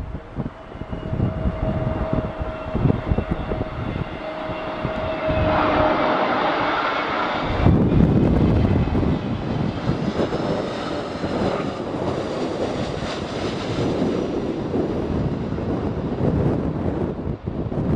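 Airbus A320neo's CFM LEAP-1A turbofans whining as the airliner comes in to land, growing louder and loudest about eight seconds in, with shifting high engine tones after that. Gusty wind buffets the microphone throughout.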